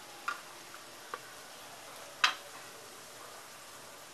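Metal spatula and spoon clicking against the tawa three times, the third the loudest, while turning pieces in shallow oil, over a faint steady hiss of frying oil.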